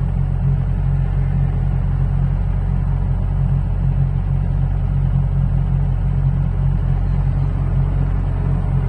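Excavator diesel engine running steadily, a deep even rumble with a constant low hum.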